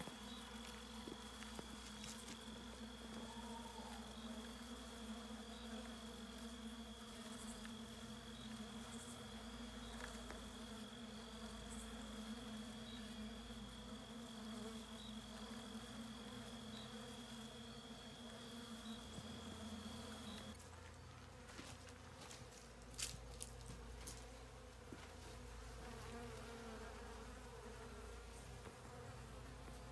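Honey bees buzzing in numbers, a steady hum, first from bees feeding at an open-feed bucket of sugar water. About two-thirds through the sound changes to bees crowding a hive entrance, typical of robbing.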